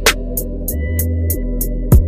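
Background music: an electronic hip-hop beat with quick, evenly spaced hi-hat ticks, a deep kick drum and a bass line.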